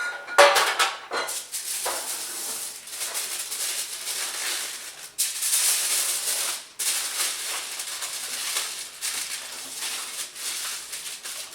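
Aluminium foil crinkling and rustling as it is pulled and pressed around a terrine mold to seal it, with a sharper crackle about half a second in.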